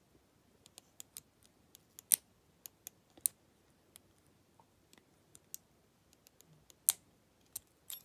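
Small, sharp metallic clicks of a lock pick working the pins inside a Master Lock 410 lockout padlock held under a tension wrench. They come at irregular intervals, with two louder clicks, about two seconds in and near seven seconds.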